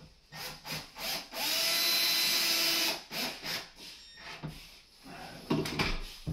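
Cordless drill driver running in one steady burst of about a second and a half, driving a screw to fix a drawer runner inside a base cabinet, followed by several short knocks and clicks.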